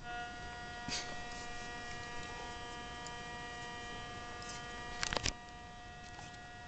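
Steady buzzing tone with many overtones that starts suddenly: the sawtooth disturbance injected into the power supply lead of an audio amplifier circuit, heard undamped. A few sharp clicks about five seconds in, after which the buzz drops a little in level.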